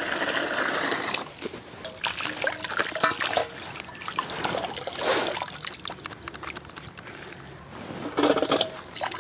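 Water pouring and sloshing as boiled snail meat is washed in turmeric water. There is a steady pour for about the first second, then scattered splashes and small clicks, with a stronger splash about five seconds in.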